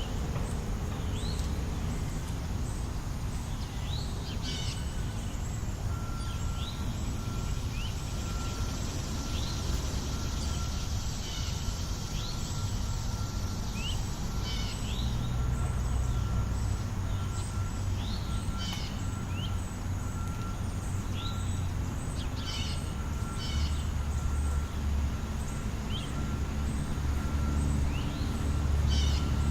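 City park ambience: a steady low rumble of traffic under a bird repeating short rising chirps every second or two. A faint steady high tone comes in about six seconds in.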